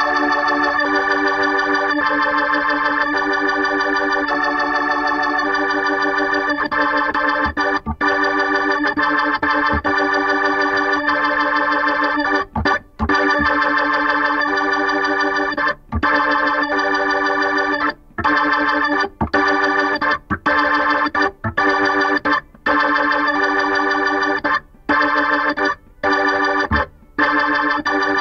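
Isolated Hammond B3 organ playing sustained chords that change every second or so; from about halfway through, the chords are cut off by short, sudden silences between them.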